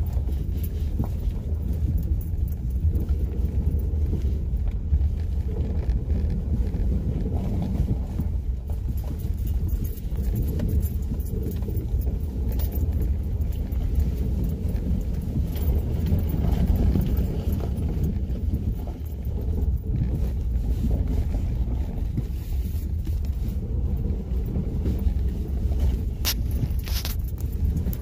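Honda Ridgeline pickup heard from inside the cab, driving over a snowy, rutted dirt track: a steady low rumble of tyres and drivetrain, with a few sharp clicks near the end.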